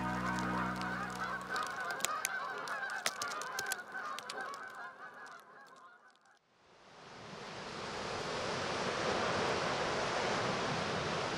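A flock of Canada geese honking, a dense overlapping chatter of calls that fades out about six seconds in. It gives way to a steady hiss of surf washing on a rocky shore.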